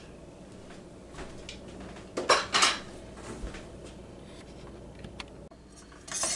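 Kitchen utensils clinking against a stainless steel pot: a few light taps, two louder knocks a little over two seconds in, and a couple more ticks. Near the end a wire whisk starts stirring and clattering in the melted butter in the pot.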